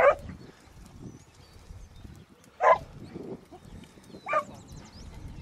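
Beagle hounds giving voice on a rabbit's scent: three short single barks, a second or two apart.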